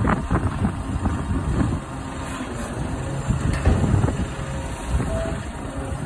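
Diesel engine of a front-loader garbage truck running at low speed as the truck creeps forward, a steady low rumble.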